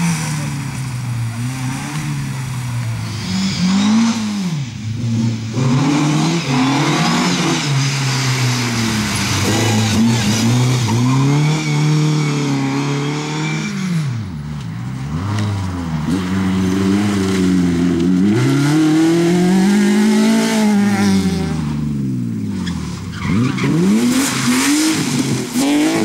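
Rally car engines revving hard through a stage, one car after another. Engine pitch climbs and drops again and again as they shift gears and lift for corners, with brief lulls between cars.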